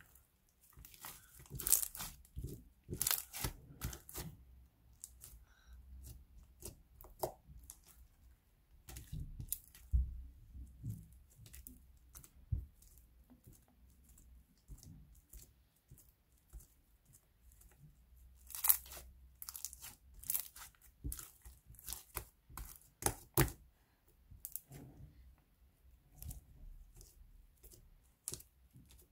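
Clear glitter slime with star sequins being pressed, stretched and pulled apart by hand, giving irregular sticky pops and crackles that come in clusters with quieter gaps between.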